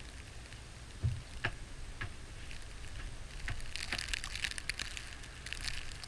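Blizzard wind buffeting the microphone with low thumps, the strongest about a second in, and wind-driven snow ticking and crackling against the camera, growing dense from about four seconds in.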